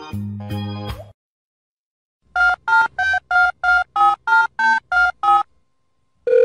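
The last second of a music track with chords, then a pause, then about ten short electronic telephone keypad beeps, roughly three a second, switching among a few pitches like a number being dialled.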